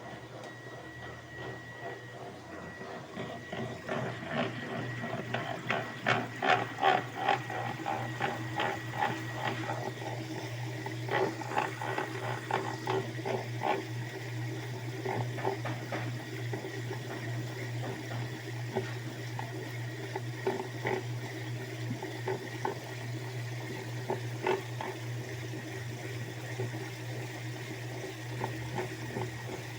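Washing machine running: a steady motor hum with water churning, and a run of quick knocks and clicks from about four seconds in that thins out after about sixteen seconds.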